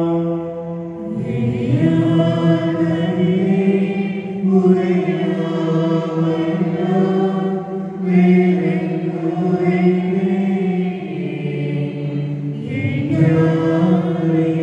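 Slow devotional chant sung with long held notes, in phrases of a few seconds each, with a short break about a second in and another near the end.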